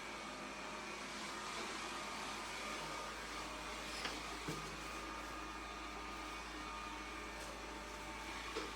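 Cecotec Conga 8490 robot vacuum running, its suction fan giving a steady whirring hiss with a faint whine, and a few light knocks about four seconds in and near the end.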